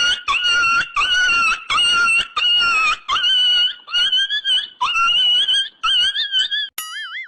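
Comedy sound effect: a string of short, high-pitched squealing calls, about two a second, each with a slightly wavering pitch. Near the end a click is followed by a wobbling, warbling tone that fades out.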